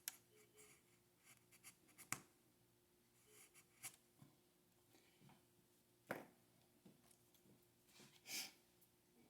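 Quiet handling of a tiny model stop sign on a model railway layout: a few sharp small clicks and taps spread out over several seconds, and a short scratchy rustle near the end.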